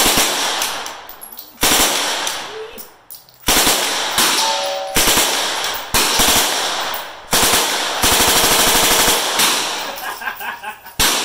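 Fully automatic gunfire: a series of short bursts a second or two apart, each trailing off in echo, with a longer run of rapid, evenly spaced shots about eight seconds in.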